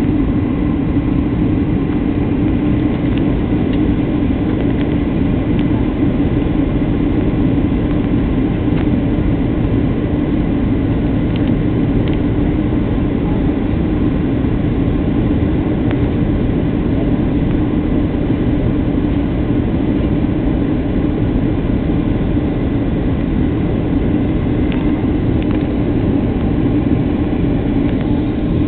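Steady cabin noise inside a Boeing 737-700 on approach: the even drone of its CFM56-7B jet engines and the rush of air past the fuselage, strongest as a low hum.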